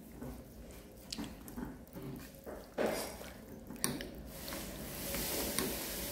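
Kitchen work sounds: a few light knocks and clinks of utensils and pots, then a steady hiss begins about four seconds in and keeps going, like running tap water or food starting to sizzle in a pan.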